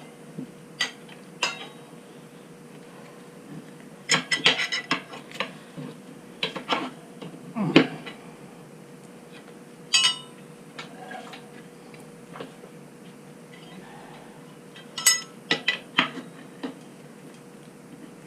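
Irregular metal clinks and knocks of tire-changing tools against a motorcycle wheel rim while the tire bead is being worked off, in scattered clusters over a faint steady hum.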